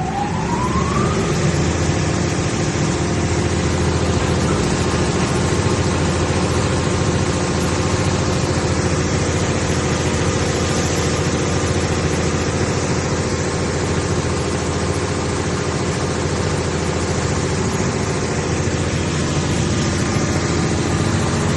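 GMC Finish Pro wide-belt metal sander starting up: a rising whine that levels off about a second in, then the sanding belt running steadily with a loud, even machine hum.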